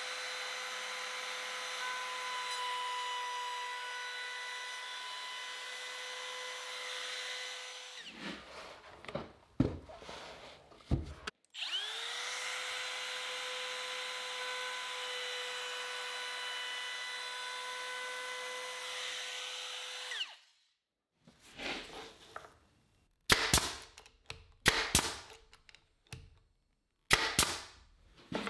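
Router with a small roundover bit running at full speed as it rounds over a square edge of AZEK PVC trim. It winds down about eight seconds in, a few knocks follow, then it spins up again for about nine more seconds and winds down. Several sharp knocks and taps come near the end.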